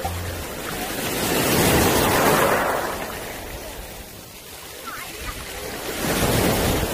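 Small waves washing up over a pebbly, sandy shore and running back, the surf swelling about two seconds in and again near the end.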